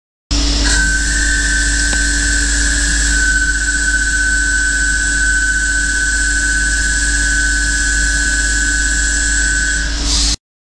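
Carbide 16 mm boring bar chattering while internally turning a dry 34CrNiMo steel bore at 6xD overhang on a CNC lathe: a steady high-pitched squeal over the cutting noise, stopping abruptly near the end. The squeal is the overhung carbide bar vibrating, the chatter that leaves a patterned, unusable surface on the bore.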